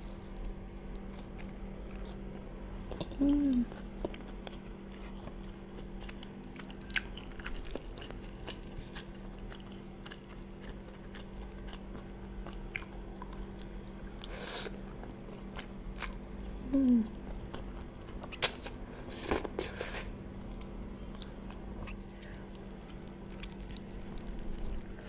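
Close-miked chewing of soft dory fish and spaghetti, with many small wet mouth clicks and smacks. Two brief low throat sounds, about three seconds in and about seventeen seconds in, are the loudest moments.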